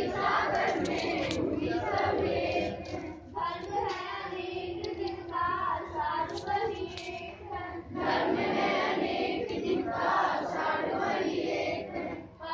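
A group of schoolchildren singing a morning assembly prayer together in unison, with brief pauses between lines.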